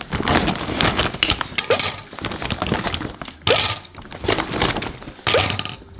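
Pairs of metal scissors being taken out and set down on a hard surface one after another: a run of small clicks and knocks with three louder clinking clatters.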